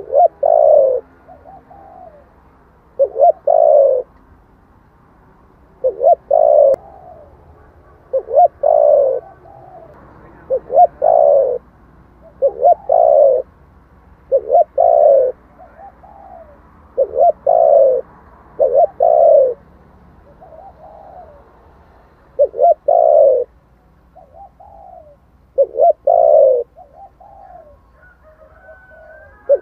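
Spotted dove cooing: a loud, close coo phrase of a few notes repeats about every two to three seconds, with softer coo notes in between.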